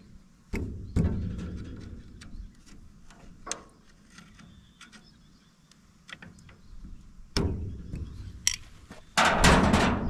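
Scattered metal clicks and knocks as a thin steel tool works at a stubborn split pin in a hay baler's knotter, a handful of separate knocks with short pauses between them. A louder scraping clatter comes near the end.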